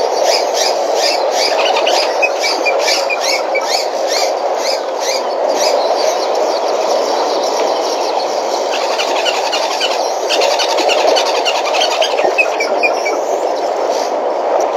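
Outdoor ambience: a steady rushing noise under rapid, repeated high chirps of birds, which thin out about six seconds in and pick up again a few seconds later.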